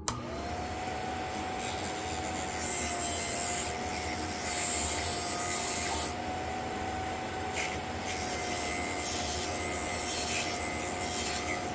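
Electric drill bit sharpener switched on, its motor spinning up within a fraction of a second to a steady hum. Over the hum comes the rasping hiss of a steel drill bit being ground against the sharpening wheel, swelling and easing as the bit is worked.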